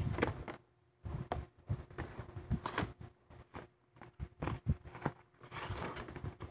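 Cardboard figure box being handled and opened: the box is turned over, its flap opened and the cardboard insert slid out, giving irregular taps, knocks and short scraping rustles.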